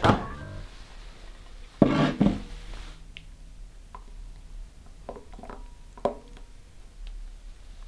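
A few light clinks and taps of a metal jug and bowl while sauce is poured. A brief louder noise comes about two seconds in.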